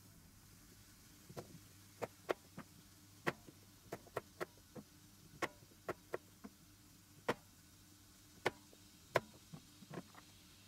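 Kitchen knife chopping a vegetable on a plastic cutting board: about twenty sharp, irregular knocks, starting about a second in.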